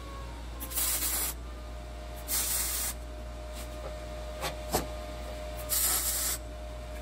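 MIG welder laying three short tack welds, each a hiss of about half a second, tacking the hinges of a smoker's firebox door in place. Two light clicks come between the second and third tack.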